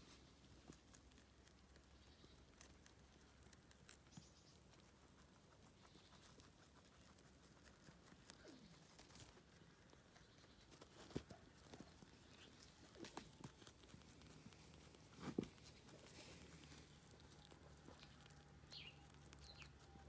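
Faint nibbling and crunching of young rabbits chewing sorrel leaves: a scatter of small clicks, with a few louder ones a little past the middle.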